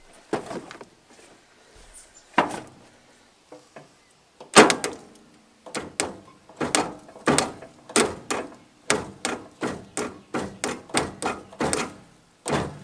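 Riding mower's electric starter, powered from a jump pack, clunking repeatedly as it tries to turn the engine over. It gives a few scattered knocks, then about two a second for several seconds without the engine spinning freely, which the owner takes as acting like the blades are engaged.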